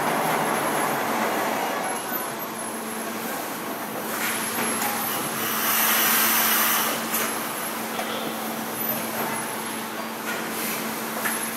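Factory-floor machinery din: a steady hum under a wash of noise, with a louder hiss that swells about four seconds in and dies away about three seconds later.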